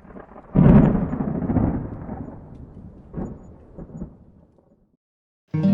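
A thunder rumble: a sudden loud crack about half a second in that rolls and fades over about four seconds, with two smaller swells, before acoustic guitar music starts near the end.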